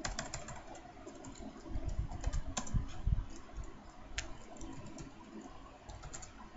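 Typing on a computer keyboard: irregular keystrokes, some with a dull thump, as an email address and then a password are entered.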